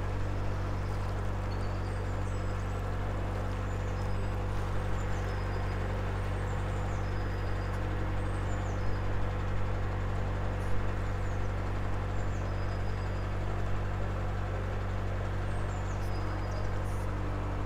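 Narrowboat's diesel engine running steadily at cruising speed, a constant low drone. Small birds chirp now and then above it.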